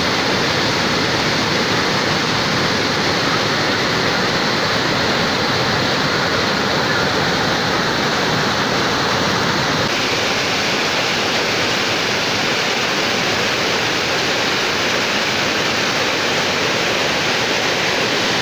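Floodwater rushing in a torrent down a flight of steps: a loud, steady wash of water noise.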